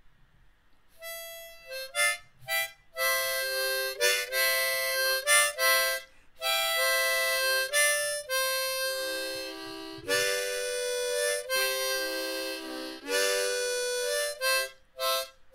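Intro music: a solo instrumental melody of short stabbed notes and longer held notes, with some notes sounded together, ending on a held note.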